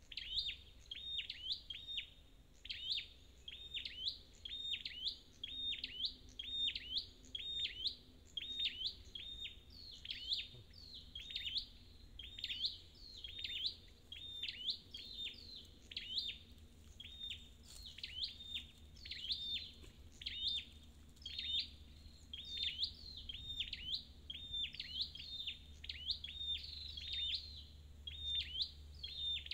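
Scarlet-backed flowerpecker calling over and over: sharp, high ticks, each a quick downward sweep, about two to three a second.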